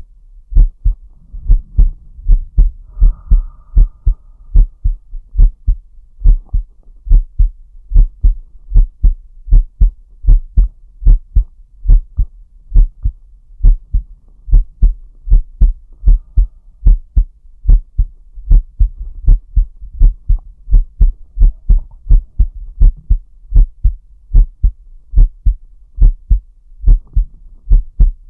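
A man's heartbeat picked up close against the chest: steady paired lub-dub beats repeating evenly.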